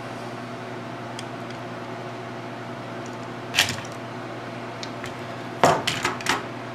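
A steady low mechanical hum from a running machine, with a sharp click a little past halfway and a quick run of metallic clicks near the end as the trigger valve and spring are pulled from a Porter-Cable FN250C finish nailer with pliers.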